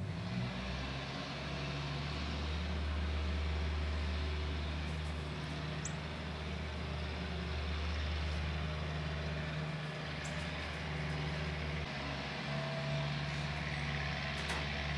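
A machine running with a steady low hum and a rushing noise, cutting in abruptly at the start.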